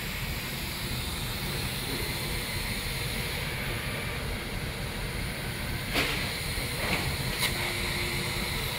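Steady machine hiss and hum from a CNC plasma cutting table, with a few short metallic clanks of thin sheet metal being handled, about six seconds in, twice more shortly after, and a louder one at the end.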